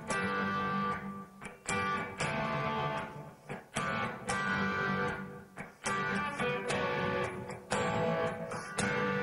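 Squier Stratocaster electric guitar playing the song's chords (G5, D5, A) at a slowed tempo, with a sharp attack about every second. Some chords ring out and others are cut short.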